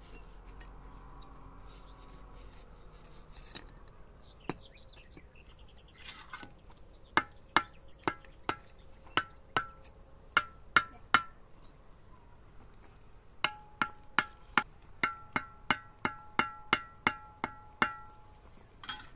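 Repeated sharp knocks, each with a short ringing tone, in two runs. About nine blows come at roughly two a second, then after a short pause about a dozen quicker ones follow.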